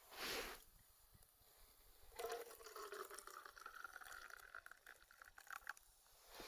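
Liquid being poured into a cup for about three and a half seconds, its pitch rising as the cup fills.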